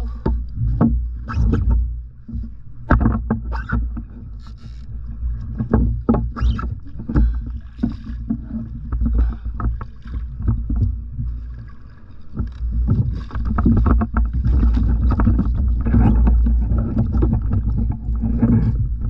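Fishing kayak on open water: water sloshing against the hull with scattered knocks and handling noises from the rod, pole and boat, over a steady low rumble that grows louder about two-thirds of the way through.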